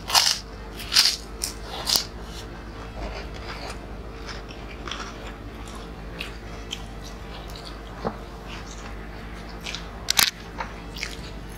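Crunchy snack chips being bitten and chewed close to the microphone: several loud crunches in the first two seconds, then softer chewing, and a few more crunches near the end.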